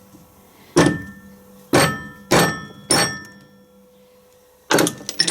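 Hammer blows on a drift, knocking a bearing race out of a Land Rover LT230 transfer box casing: four sharp metallic strikes about half a second apart, each ringing briefly, then a quicker flurry of blows near the end.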